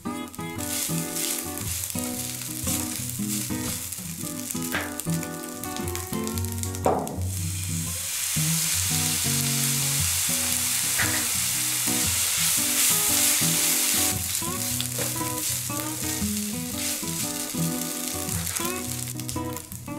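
Cooked rice frying and sizzling in a hot nonstick pan as it is stirred with a spatula. A few seconds in the sizzle turns louder and brighter for several seconds as soy sauce hits the hot pan, then settles back.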